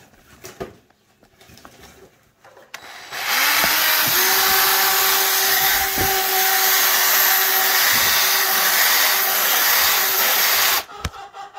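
Electric drill running at a steady speed for about eight seconds as it bores a hole through the rubber tread of a lawn mower tire. It starts about three seconds in and cuts off near the end, after a few light handling knocks.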